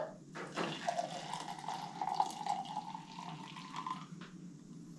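Hot water poured from a small camp cooking pot into a mug, the pitch of the pour rising steadily as the mug fills and stopping about four seconds in. A couple of light metal clinks from the pot at the start.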